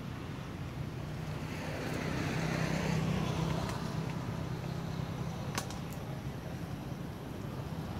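A motor vehicle passing by: a low engine hum and road noise that swell to a peak about three seconds in, then fade. A couple of sharp clicks come later.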